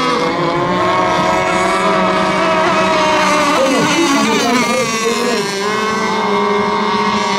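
Several racing RC boats running flat out, their motors whining at high pitch with several pitches overlapping and sliding up and down as the boats pass and turn.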